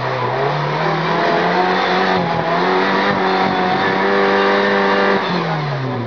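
Off-road 4x4's engine revved hard and held at high revs for about five seconds, then dropping back toward idle near the end.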